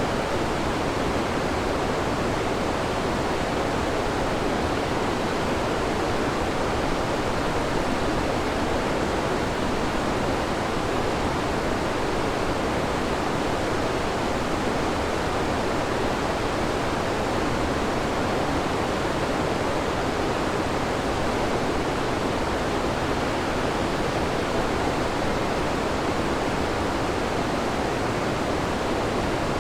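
Waterfall: a steady, unbroken rush of water falling over rocks, heard from a slope above.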